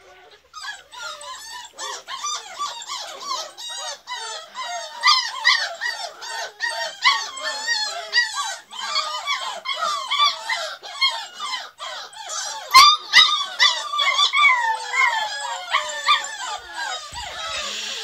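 A litter of beagle puppies whining and squealing together, many short high-pitched calls overlapping without a break. A couple of sharp knocks come about two-thirds of the way through.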